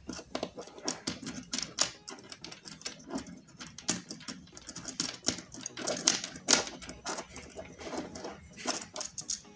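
Irregular small clicks and taps of hard plastic as white plastic standoffs are pushed and snapped into the mounting holes of an Orange Pi single-board computer and its plastic mount.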